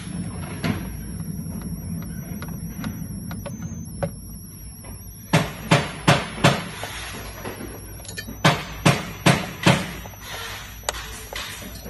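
Sharp plastic clicks and knocks from hands and a screwdriver working on a massage chair's main circuit board, its connectors and housing. A quick run of four comes about five seconds in and another run of four or five a few seconds later, with fainter scattered clicks between.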